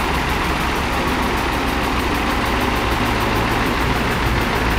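Diesel engine of a T-150 wheeled tractor with a front loader, running steadily.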